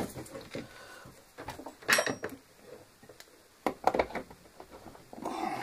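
A few scattered handling clicks and knocks: one sharp click about two seconds in, a cluster of knocks around four seconds, and a short rustle near the end.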